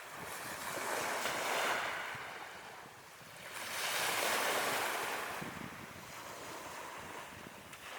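Ocean waves breaking on a shore, a hissing wash of surf that swells twice, about a second in and again about four seconds in, then ebbs back.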